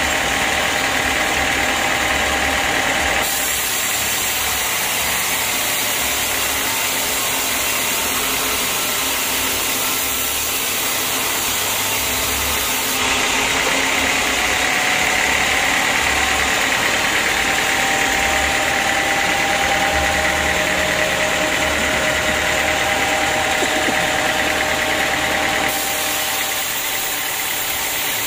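Vertical band-saw mill running and sawing a teak beam: a steady, loud mechanical whine and hum of the blade and drive, shifting abruptly in level a few times.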